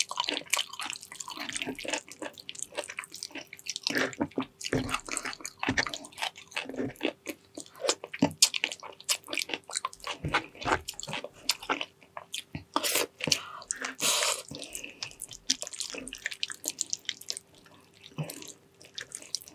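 Close-up wet chewing and lip smacking of soft, gelatinous braised pig's trotters: an irregular run of sticky smacks and clicks.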